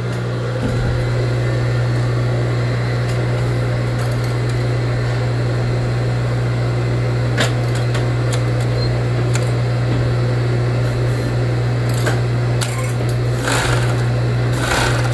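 Industrial coverstitch sewing machine's clutch motor running with a steady low hum while fabric is sewn, with a few brief noisier moments near the end. The motor, fitted with a new cork brake pad in its clutch, is working again.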